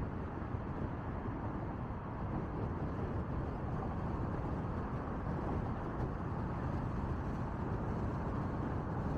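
Steady road noise of a car driving at speed on an expressway: tyres on asphalt and wind.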